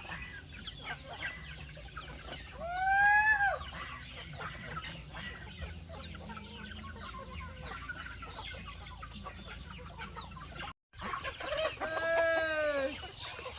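A flock of chickens clucking and chattering, with two loud drawn-out rooster crows, one about three seconds in and another near the end.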